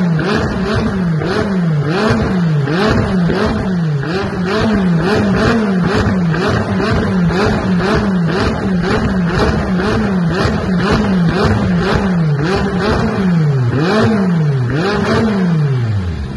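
McLaren 570S twin-turbo V8 revved over and over through an ARMYTRIX valved exhaust, about one and a half blips a second, the pitch falling back after each one with sharp pops from the exhaust: unburnt fuel igniting, the flame-shooting the car is doing. Near the end one last, longer rev falls away toward idle.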